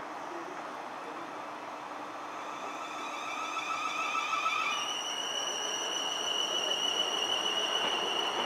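Class 450 Desiro electric multiple unit running past under power. Its traction inverters whine in steady tones that jump up in pitch about five seconds in, over a rising hiss of wheels on rail.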